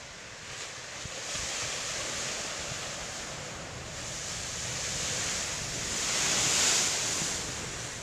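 Ocean surf breaking against black lava-rock sea cliffs: a rushing wash of water and spray. It swells a little past a second in, is loudest about two-thirds of the way through, and then ebbs.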